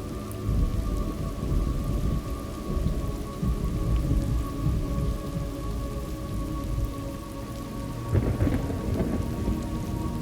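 Thunderstorm: steady rain falling, with low rolling thunder that swells about half a second in and again near the end.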